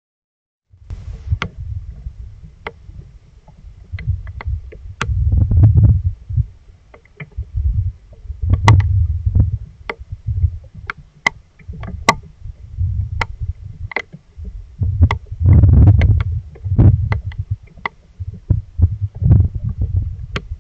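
Rain storm on a trail camera: scattered sharp taps of raindrops on the camera housing over repeated surges of low, buffeting rumble.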